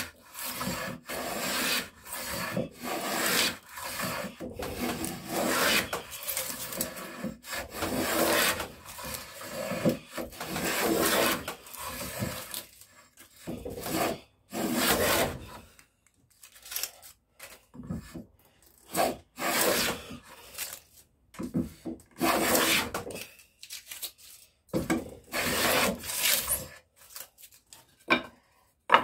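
Hand rebate plane shaving cedar in repeated push strokes, each a short rasping cut, close together at first and more spaced out later. A sharp knock comes at the very end.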